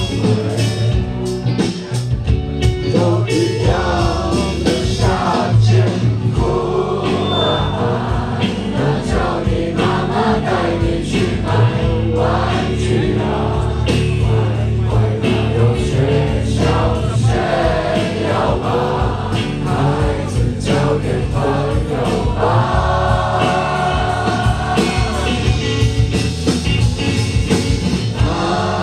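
Rock band playing live with lead singing over a heavy, continuous bass.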